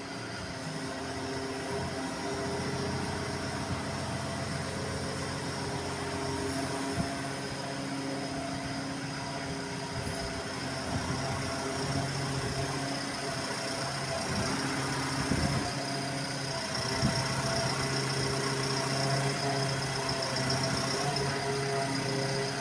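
Diesel engine of a 2016 Menzi Muck M5-45 excavator running steadily, with a few short knocks and the engine a little louder for the last few seconds.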